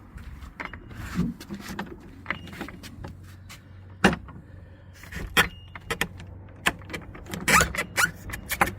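Repaired circular-handled garden gate latch being worked open and shut: a run of sharp metal clicks and clanks, the loudest about four seconds in and a cluster near the end. The latch still has a bit of play.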